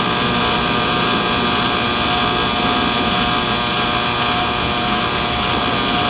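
LiftMaster garage door opener's electric motor and drive running steadily, unloaded on a bench through an open cycle: a loud, even mechanical whir with a steady tone in it.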